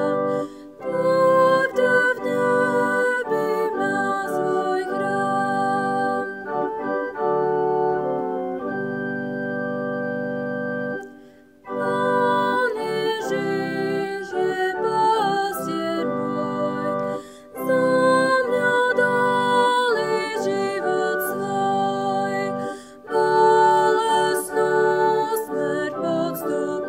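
Church organ playing a hymn tune in phrases of held chords, with short breaks between the lines. A quieter, thinner passage comes about a quarter of the way through.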